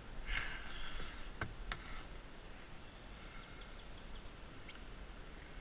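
Kayak paddle strokes splashing in fast creek water, with two sharp knocks a little over a second in, then a low steady wash of water.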